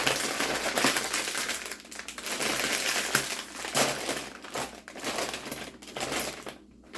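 A crinkly chip bag being opened and handled: a long run of rustling and sharp crackling that stops briefly near the end.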